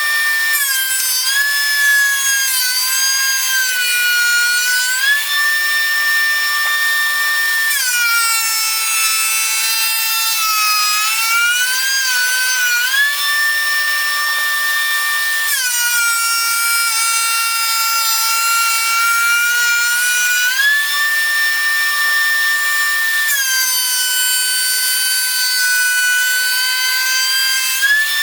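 DeWalt thickness planer running with a high motor whine. The pitch sinks for several seconds at a time as a white oak board feeds through under load, then comes back up between passes.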